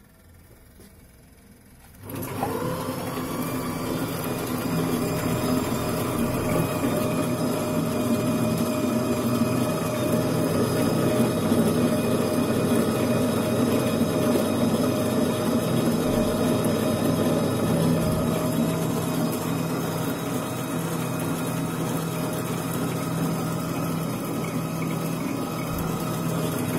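Glass lathe's electric drive switched on about two seconds in, then running steadily with a hum and a constant whine.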